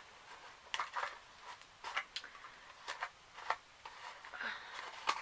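Scattered light clicks and taps from handling small cosmetic product packaging, about eight short sharp knocks spread irregularly.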